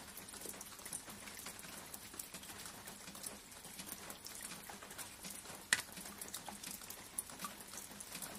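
Rain falling: a steady hiss with many small drops pattering irregularly, one sharper drop tick about two-thirds of the way through.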